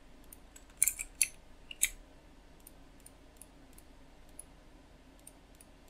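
Computer mouse button clicks: a quick cluster of about four sharp clicks between one and two seconds in, then a few faint scattered ticks.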